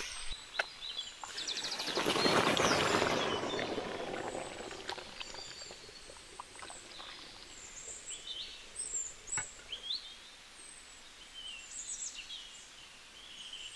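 Hot oil in a cooking pan sizzling loudly for a couple of seconds starting about two seconds in, then dying away. Birds chirp with short, high calls repeatedly through the rest.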